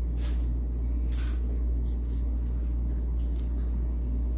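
Steady low hum, with a few faint soft rustles of a crochet hook drawing cotton twine through stitches.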